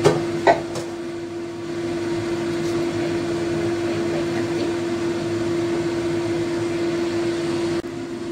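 Steady machine hum with one steady pitch, like a running appliance motor, with two sharp clicks near the start, about half a second apart, as a plastic spatula knocks against a china plate of food.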